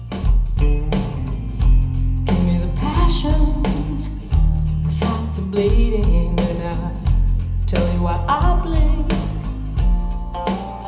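Rock song with a steady drum beat, bass, guitar and singing, played back through Klipsch RP-600M bookshelf speakers.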